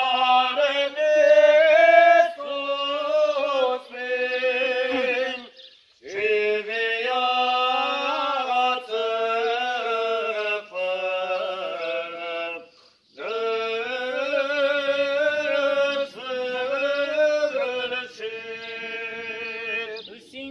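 Romanian Orthodox memorial-service chant: voices singing long, drawn-out melodic phrases. It breaks off briefly twice, about a third and about two-thirds of the way through.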